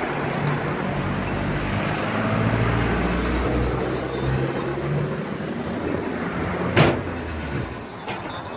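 Low rumble of a road vehicle's engine that swells and then fades, with one sharp knock about seven seconds in.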